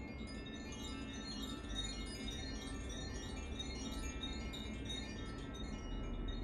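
Carillon chime being played: many small tuned chime notes struck in quick succession, ringing on and overlapping into a shimmering cascade.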